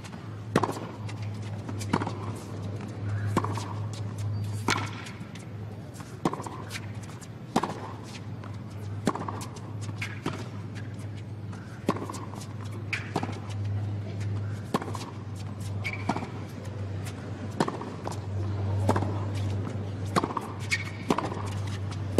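Tennis ball struck back and forth with rackets in a long baseline rally on a hard court, a sharp hit about every second and a half, over a steady low hum.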